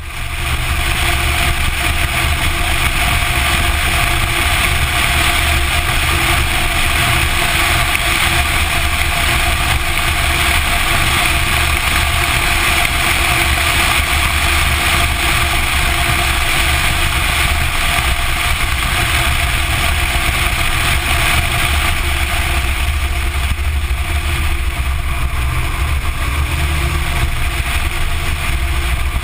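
Porsche 944 Turbo's turbocharged 2.5-litre four-cylinder running at a steady pace on track, mixed with wind and tyre noise, picked up by a camera mounted outside the car beside the front wheel. There is a constant low rumble and the level stays even, with no big revving changes.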